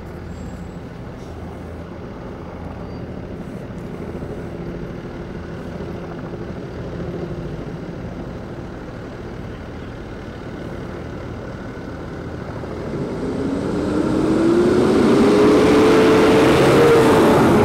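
A heavy engine drones steadily. From about thirteen seconds in, a loud rising whine and rushing noise build up, typical of an engine spooling up to full power, then cut off suddenly at the end.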